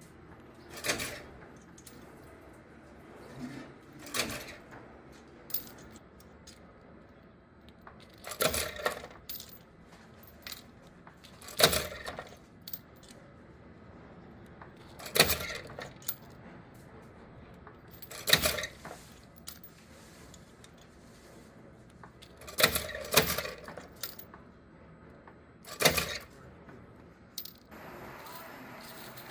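Small metal pieces clinking and clattering in short bursts, a burst about every three seconds, in the manner of a repeating machine cycle. A steady hiss sets in near the end.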